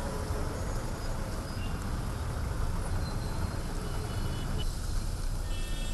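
Steady rumble of jammed city traffic on a wet road: car engines idling and creeping along, with tyre hiss on wet tarmac.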